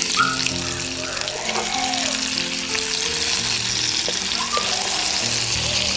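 A hot coconut-oil tempering of mustard seeds, dried red chillies and curry leaves sizzling steadily on top of the curry, over background music of slow sustained notes.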